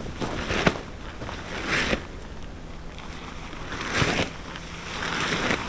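A 3 × 3 m tarp rustling as it is lifted and shifted by hand, with a few louder swishes and footsteps on sandy forest ground.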